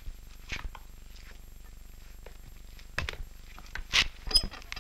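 Handling noises as an injured man is lifted from a stretcher onto a bed: scattered rustles, scuffs and soft knocks, busiest and loudest about four seconds in, over the steady low hum of an old film soundtrack.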